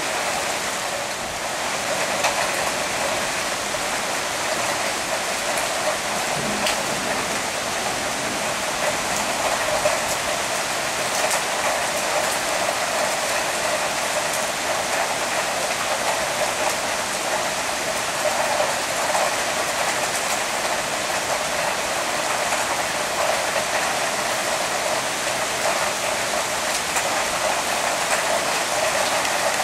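Heavy downpour falling on a flat roof and paving: a dense, steady hiss of raindrops splashing into standing water.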